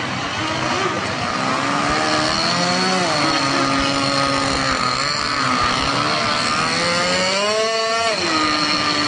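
Small engines of radio-controlled model boats running and revving on the water, the pitch wavering up and down. The pitch climbs a little about three seconds in and climbs sharply about eight seconds in, then drops back.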